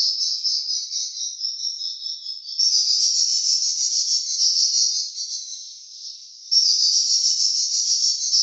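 Swiftlet calls: a dense, high, rapid twittering. It jumps up in level suddenly about two and a half seconds in, fades, then jumps up again near the end.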